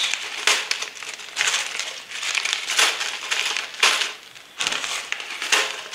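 Plastic zip bags full of small plastic bricks crinkling as they are handled and set down, in a series of rustling bursts, with the bricks inside shifting.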